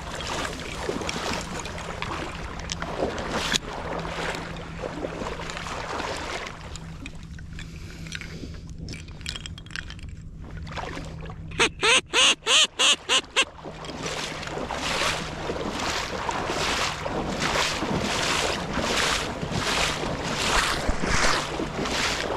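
A quick run of about seven loud, evenly spaced duck quacks a little past halfway, over steady wind noise on the microphone. In the last third there are soft, regular whooshing pulses, nearly two a second.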